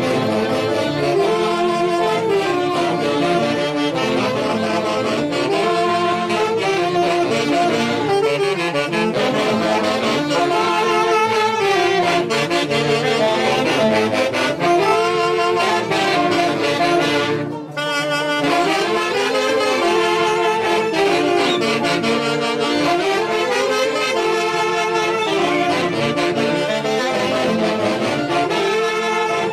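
Huancayo-style orquesta típica music, saxophones and brass playing a repeating dance melody, with one short break a little past halfway through.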